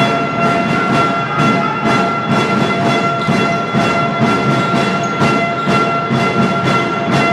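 Fans' bass drums beating a steady rhythm, about two beats a second, over crowd noise in a gym, with a steady pitched tone held underneath throughout.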